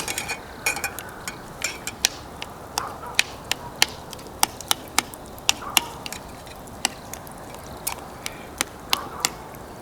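Pine-log wood fire crackling, with sharp irregular pops about twice a second.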